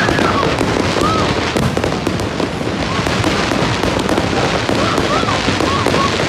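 Fireworks display going off in a dense, continuous barrage of rapid bangs and crackling, with crowd voices calling out underneath.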